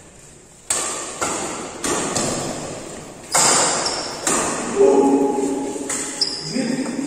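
Badminton rackets striking a shuttlecock during a fast rally: about eight sharp smacks at uneven gaps of half a second to a second, each ringing out in a large echoing hall.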